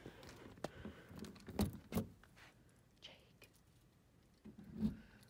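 Several faint knocks and clicks as a barn door is handled and passed through, the loudest a pair about two seconds in and another near the end.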